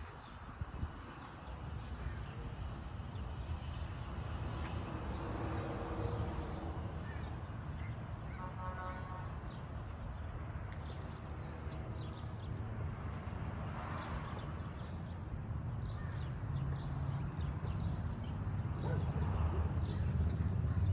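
Outdoor street ambience: a steady low rumble, growing a little louder near the end, with a short bird call about nine seconds in.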